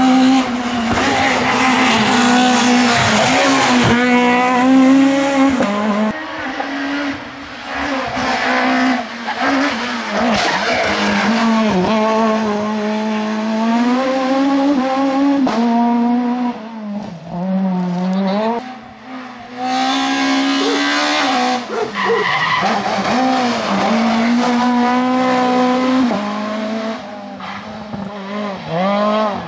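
Peugeot 106 S16 rally cars' tuned 1.6-litre 16-valve four-cylinder engines at full throttle, one car after another. The pitch climbs and drops repeatedly with gear changes and lifts off the throttle, and the level dips briefly between passes.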